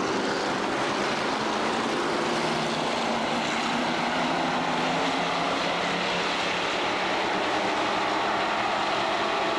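A pack of street stock race cars racing together on the oval, many engines running at once in a steady, unbroken mix.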